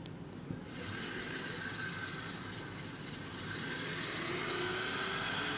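A car's engine revving as its tyres spin on an icy, snow-covered hill, a hissing whine that comes in about a second in and grows louder in the second half, with the engine note rising. A short click comes just before it.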